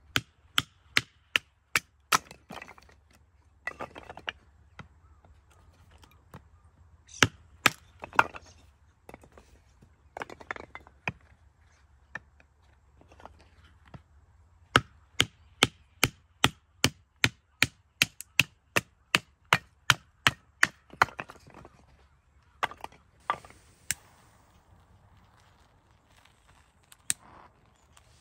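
Firewood being chopped for a campfire: sharp wooden knocks, scattered at first, then a fast even run of about three strikes a second for several seconds past the middle.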